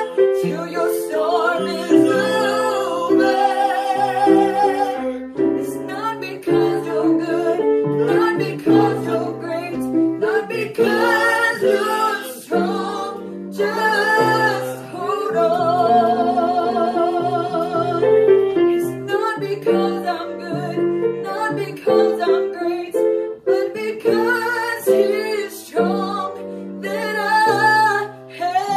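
A woman singing loudly with a wavering vibrato on held notes, accompanied by a grand piano.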